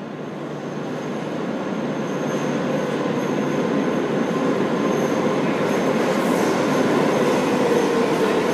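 Madrid Metro train approaching out of the tunnel and running into the station platform, its rumble growing steadily louder.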